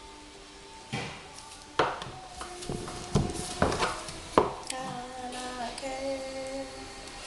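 Wooden soap cutting box knocking as a steel soap-cutter blade is pushed down through a soap log and the cut bars are handled: about five sharp knocks, coming closer together between about one and four and a half seconds in.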